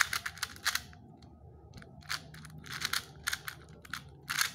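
Cyclone Boys 2x2 speedcube being turned quickly by hand: rapid plastic clicks and clacks in irregular clusters as the layers snap through their turns.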